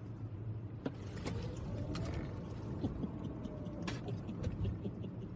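Car cabin noise while driving: a steady low hum and rumble from the engine and road, with a few faint clicks.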